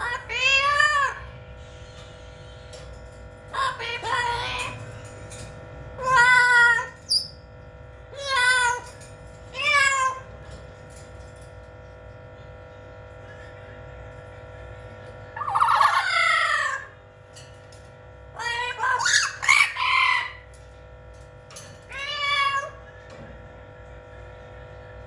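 Blue-fronted Amazon parrot giving about eight loud, drawn-out calls with pauses between them, some sounding like crowing.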